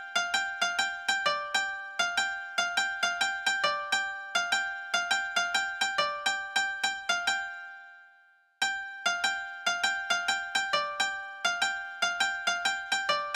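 Background instrumental music: a quick, steady run of repeated notes that dies away about eight seconds in and starts again half a second later.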